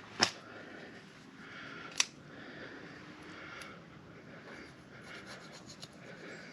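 Tools scraping and rubbing on a motorcycle tire around a freshly inserted string plug, as the plug's sticking-out ends are trimmed. Two sharp clicks, about a quarter second in and at two seconds, are followed by a run of short rasping strokes.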